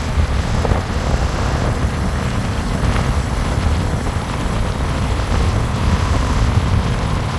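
A moving vehicle's steady low rumble of road noise, with wind buffeting the microphone.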